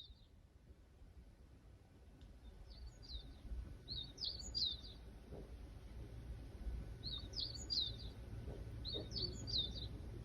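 A small songbird singing short phrases of quick, high, down-slurred chirps, a phrase every couple of seconds, over a faint low rumble of wind or handling.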